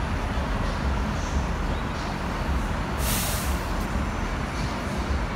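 Steady street traffic rumble, with a short hiss about three seconds in.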